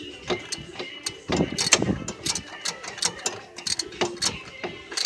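Ratchet wrench clicking in quick, irregular runs of back-and-forth strokes as it tightens the ignition coil bolts.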